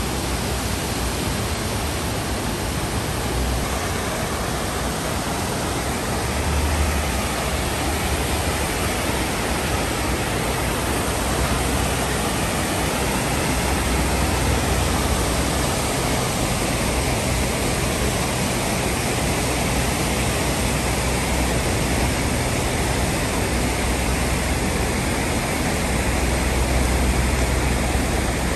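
Flash floodwater rushing down a concrete driveway and pouring over a low wall into a channel: a steady rush of water with a deep rumble underneath.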